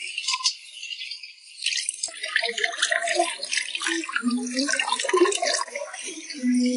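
Tap water running into a concrete sink and splashing over hands as they rinse and rub wild mushrooms under the stream. A steady low hum comes in briefly around four seconds in and again near the end.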